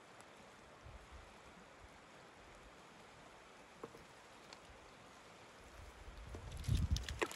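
Faint steady rush of a shallow river running over stones. Near the end, wind gusts buffet the microphone with a low rumble, mixed with a few sharp clicks of pebbles.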